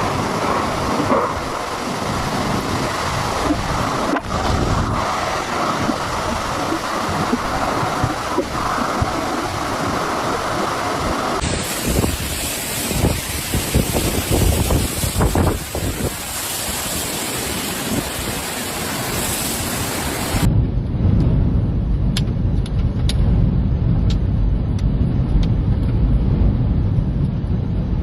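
Strong storm wind blowing and buffeting the microphone, with gusts rising and falling. Two abrupt changes in the sound mark cuts between clips. The last stretch is mostly a deep rumble of wind on the microphone.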